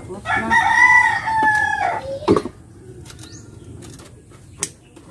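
A rooster crows once: one long call of about a second and a half that drops away at the end. A sharp knock follows just after it.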